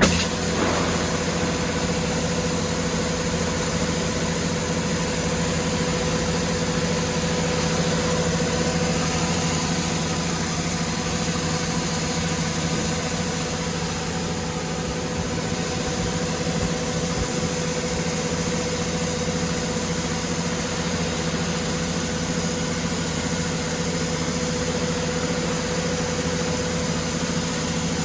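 Corn harvester's engine running steadily at one constant speed, with a steady hum and no change in pitch.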